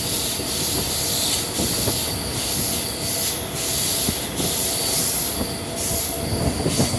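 Train running on the rails with a steady rumble, and a high-pitched wheel squeal that comes and goes.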